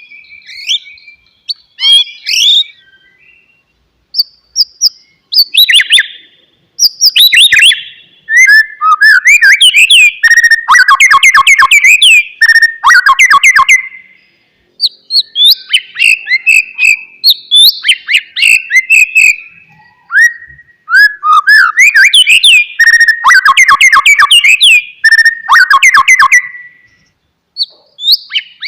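White-rumped shama singing: loud, varied phrases of fluting whistles and fast runs of sharp chattering notes, each phrase a few seconds long, with short pauses between them.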